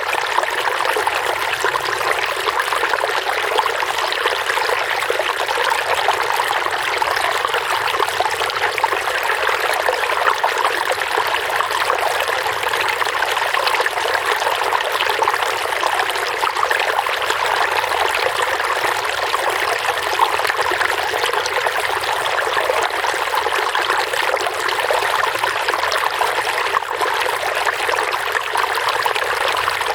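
Running water trickling and babbling in a steady, unbroken flow.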